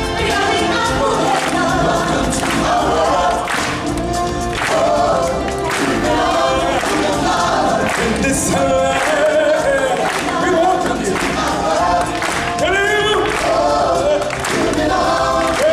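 Choir of voices singing over show music with a steady drum beat of about one strike a second.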